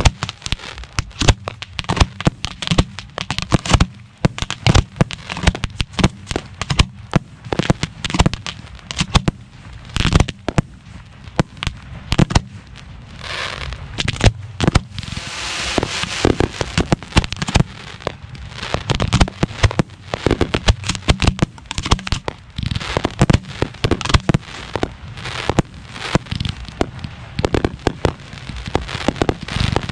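Professional 1.3G display firework shells firing from mortar racks and bursting overhead: a dense, unbroken barrage of sharp booms and cracks. About halfway through there is a stretch of hissing crackle.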